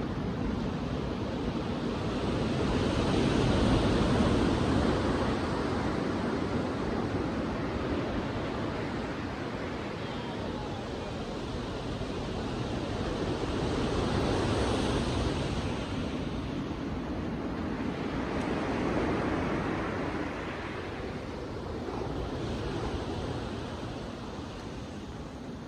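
Sea waves breaking and washing on a beach, the surf swelling and fading every several seconds, with some wind on the microphone.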